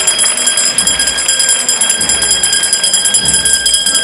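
A metal bell rung rapidly and without a break, its high ringing tones held steady. It stops right at the end.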